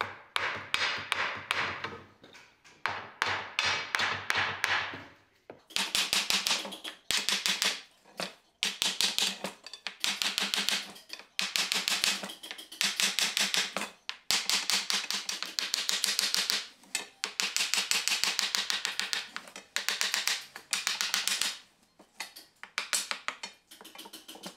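Hand saw cutting through wooden dowels between a wheel's wooden felloes and its steel clinch rim: quick raspy strokes in bursts of a second or two with short pauses between.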